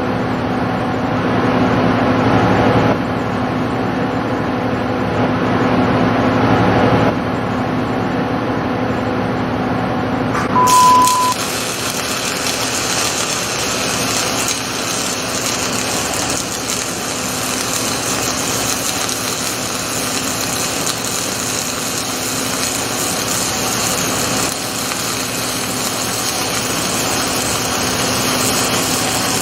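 Rotoweld 3.0 automated pipe spool welding machine running with a steady hum. About ten seconds in, a short single beep sounds. A steady hiss then joins the hum for the rest of the stretch.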